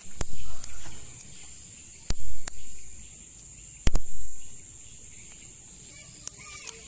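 Wood fire under tuna satay skewers on a flat pan giving off a few sharp crackling pops, over a steady high drone of insects. Three louder low, muffled rumbles come and go in the first four seconds.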